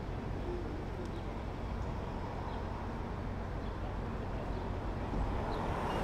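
Steady low machine hum of an idling engine, with a background wash of street noise, growing a little louder near the end.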